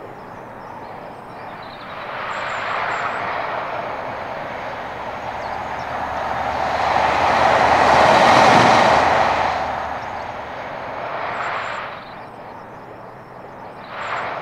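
British Rail Class 43 HST diesel power car approaching at speed. The engine and rail noise grows to a peak about eight seconds in, then fades, and it swells again near the end.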